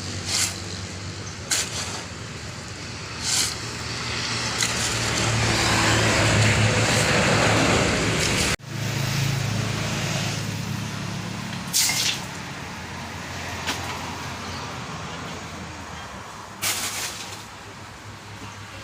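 Heavy vehicle's diesel engine running steadily, with several short, sharp hisses of air and a rushing noise that swells for a few seconds before the sound breaks off abruptly about eight and a half seconds in.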